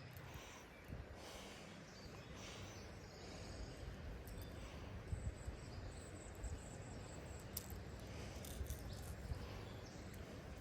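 Quiet outdoor ambience by a river: a low rumble of wind on the microphone, with a few small clicks as fishing tackle is handled while a weight is rigged on the line. A faint, high, steady tone runs through the middle.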